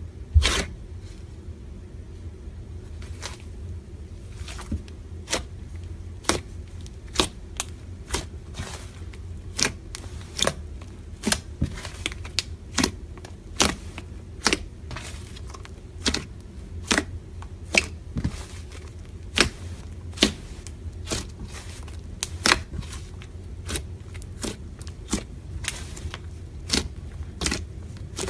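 Slime being squeezed and poked by hand, giving irregular sharp pops and clicks about once or twice a second over a low steady hum.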